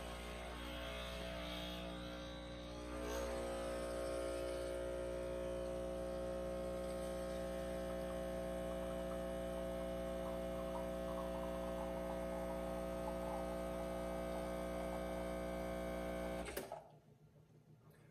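Espresso machine's pump running with a steady hum while it pulls a double shot, getting a little louder about three seconds in and cutting off suddenly near the end.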